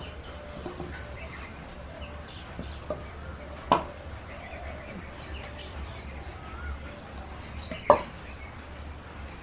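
Paper cups being flipped and landing on a tabletop: two sharp taps about four seconds apart. Faint bird chirps sound in the background over a low steady hum.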